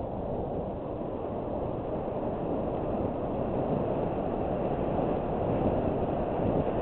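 Mountain bike rolling downhill on a dirt trail, heard from a helmet-mounted camera: a steady rumble of wind on the microphone and tyres on dirt, growing a little louder toward the end as speed picks up.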